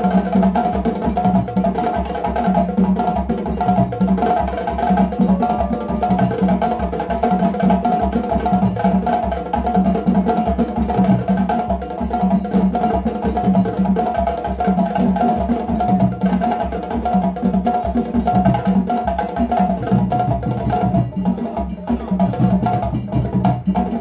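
An ensemble of djembe hand drums played together in a steady, unbroken rhythm, with many hand strokes on the skin heads.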